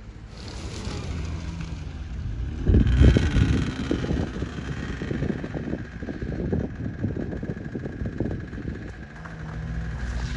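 Snowmobile engine running with a noisy rumble that gets louder about three seconds in, a faint steady whine above it.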